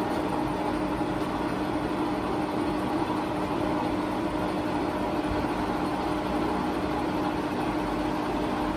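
Enco 19-1/2 x 78 in. engine lathe, driven by a 7-1/2 hp motor, running with its spindle turning: a steady mechanical hum with a steady low tone and no change in speed.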